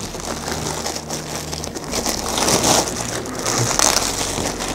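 Packaging crinkling and rustling as a Turkish coffee machine's parts are unwrapped from the box.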